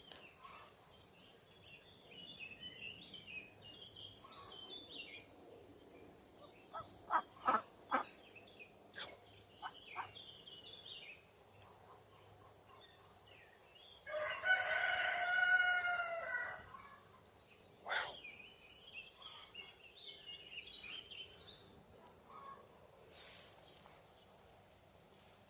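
Peacock giving one loud, drawn-out call lasting about two and a half seconds, a little past halfway. Small birds chirp before and after it, and a few sharp clicks come earlier.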